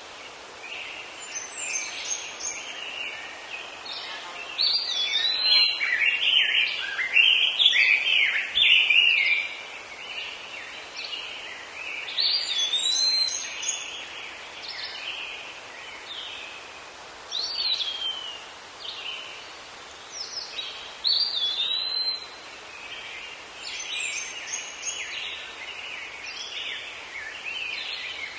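Several songbirds singing in forest: repeated swooping whistles and clusters of high chirps, busiest about five to nine seconds in.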